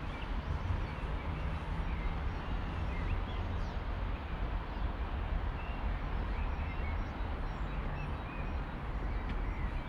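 Steady outdoor rumble and hiss, heaviest in the low end, with several short high bird chirps scattered through it.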